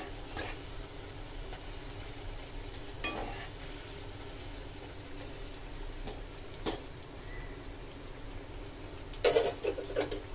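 Spinach pakoras deep-frying in hot oil in a metal kadhai, a steady sizzle, while a wire-mesh frying strainer clinks and scrapes against the pan a few times. The loudest part is a quick cluster of knocks near the end.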